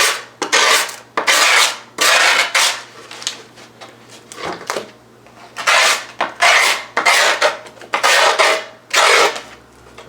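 A tool scraped in repeated rasping strokes along the edge of a skateboard deck over the grip tape, roughly ten strokes about half a second each, scoring the outline of the board into the grip tape before it is trimmed.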